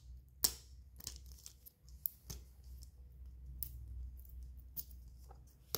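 Faint crinkling, tearing and scattered clicks of plastic toy packaging being worked open by hand.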